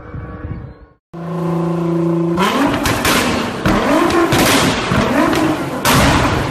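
Nissan GT-R R35's twin-turbo V6 through its exhaust, loud. It runs steadily, breaks off about a second in, holds a steady note, then is revved in quick repeated blips, roughly one a second, with sharp cracks from the exhaust between them.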